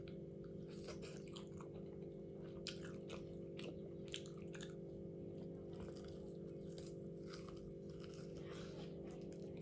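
A person chewing crunchy food close to the microphone: irregular soft crunches and mouth clicks, over a steady low hum.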